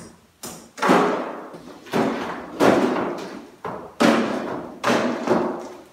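Hammer blows on a sagging cast-concrete bar counter slab being broken up for demolition. There are about seven sharp strikes in a loose rhythm of roughly one a second, some heavier than others, each with a short ringing decay.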